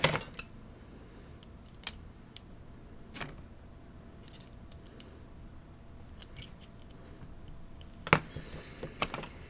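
Lock picks working inside a Fichet lock cylinder: scattered small metallic clicks and ticks, with a louder click at the start and a few sharper clicks together near the end.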